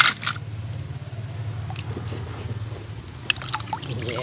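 A die-cast toy truck dropped into a plastic basket of toy cars, clattering twice sharply, then a few light clicks of toys being handled, over a steady low hum.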